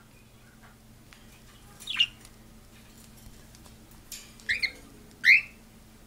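Pet birds giving short, sharp squawking calls as they squabble: one about two seconds in, a quick pair past four seconds, and the loudest just after five seconds.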